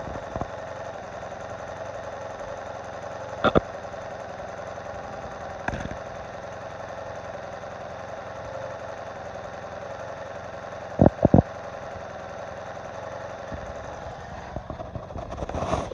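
1986 Honda Magna's V4 engine idling steadily with a ticking whose cause the owner cannot find. A few sharp knocks stand out: about three and a half seconds in, again two seconds later, and a close pair about eleven seconds in.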